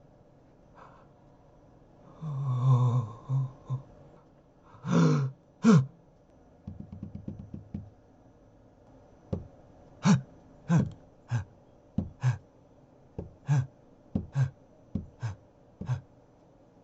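A person's voice: a drawn-out gasp or groan, then two short loud bursts like coughs and a quick rattle. After that comes a run of about a dozen short, sharp sounds, spaced roughly half a second apart and unevenly.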